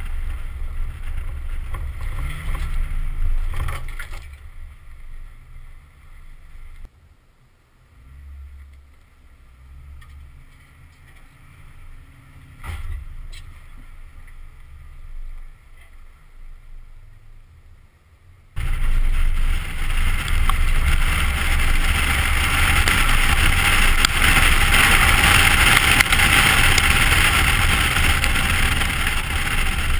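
2010 Ford Raptor's 6.2-litre V8 truck driving off-road, engine and tyre noise together. It drops to a quieter low rumble about four seconds in and comes back loud and steady, suddenly, about two-thirds of the way through.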